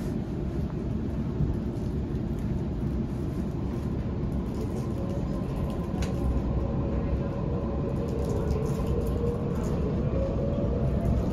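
Sydney Trains Waratah B-set electric train pulling away, heard from inside the carriage: a steady low rumble, joined about four seconds in by a traction-motor whine that slowly rises in pitch as the train gathers speed.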